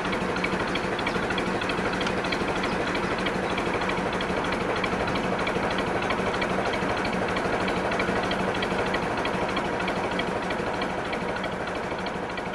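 A narrowboat's diesel engine running steadily at cruising pace, a low even chugging hum heard from on board, easing off slightly near the end.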